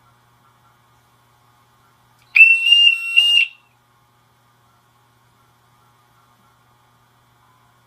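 Mini piezo siren of a home security alarm system sounding a short, loud, high-pitched test burst about two and a half seconds in, a single shrill tone broken into a few quick pulses and lasting about a second.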